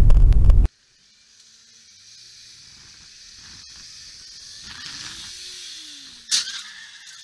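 Dashcam car audio: a loud low rumble cuts off under a second in, giving way to quiet street and traffic hiss. A sudden sharp bang about six seconds in is typical of a collision impact.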